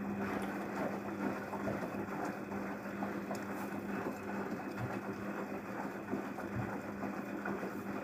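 Daewoo DWD-FT1013 front-loading washing machine running an Eco 60°C drum-clean cycle: the drum motor hums steadily while water sloshes in the turning drum.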